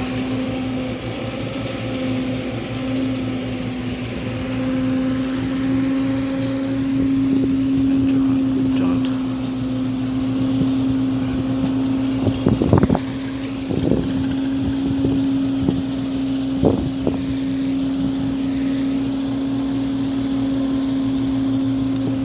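Steady low hum of a motor running at one constant speed, with a few short louder sounds about halfway through.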